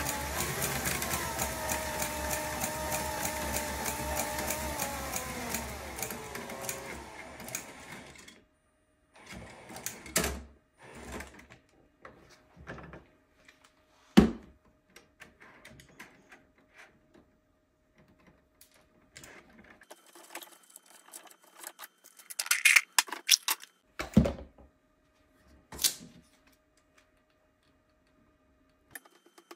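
Cordless drill driving a filament spool winder, its motor and the winder's gears whirring steadily, then slowing with a falling pitch and stopping about eight seconds in. After that come scattered knocks and clatter as the drill and plastic parts are handled and set down on a wooden desk, the loudest knock about fourteen seconds in.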